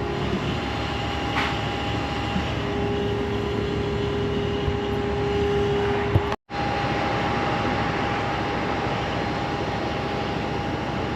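Steady machine drone with a constant hum, which cuts out completely for a split second about halfway through.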